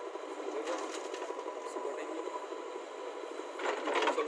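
JCB 3DX backhoe loader working, its diesel engine running steadily while it loads a tractor trolley. Near the end there is a short, louder clatter as the bucket swings clear of the trolley.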